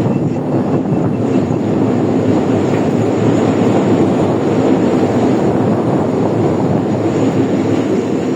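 Excavator's diesel engine running steadily under load, a continuous loud rumble.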